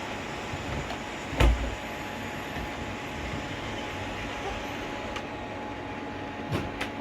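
Robot vacuums running steadily with a faint steady whine. A loud knock comes about a second and a half in, and two lighter clicks near the end.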